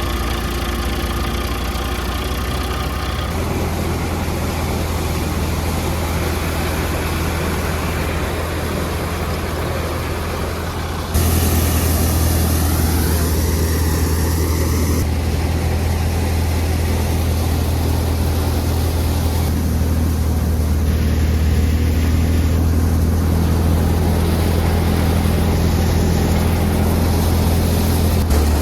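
JCB 3DX backhoe loader's diesel engine running steadily as it works, with a deep low hum; the sound gets suddenly louder about eleven seconds in.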